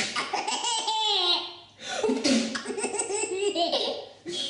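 A small child laughing hard in two long runs of giggling bursts, with a brief pause between them.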